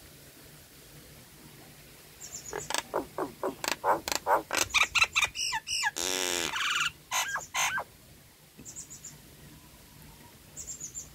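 Nias hill myna calling: a quick run of loud whistled notes, then a harsh buzzy call about six seconds in and two more whistles, followed near the end by faint high chirps.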